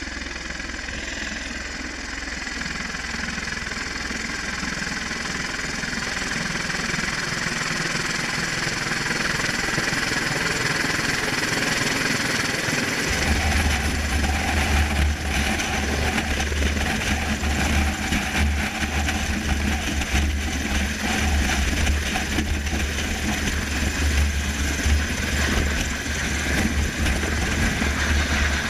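Bell Boeing V-22 Osprey tilt-rotor running, its twin turboshaft engines and proprotors making a steady rush. About halfway through a deep low rumble sets in, and the sound grows gradually louder.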